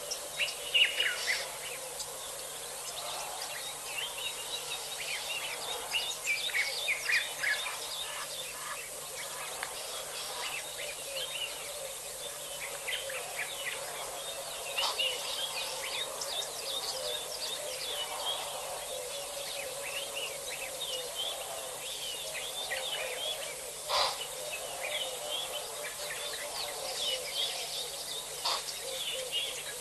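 Several birds calling and chirping in quick, overlapping phrases over a steady background hiss and low hum, with a single sharp click about two-thirds of the way through.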